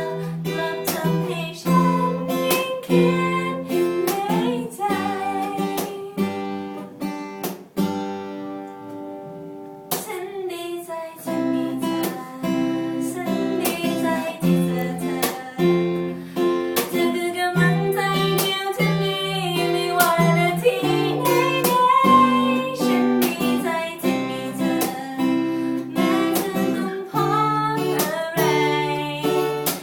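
An acoustic guitar strummed under a voice singing a song. About eight seconds in, the strumming pauses on a ringing chord, and it picks up again about ten seconds in.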